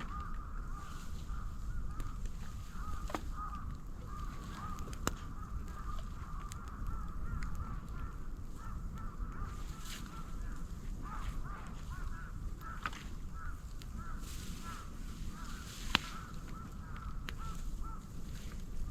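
Moso bamboo burning in an open fire: a continuous wavering whistle, typical of steam and gas escaping from heated bamboo sections, over a low rumble of the fire, with scattered sharp cracks and pops, the loudest about two-thirds of the way through.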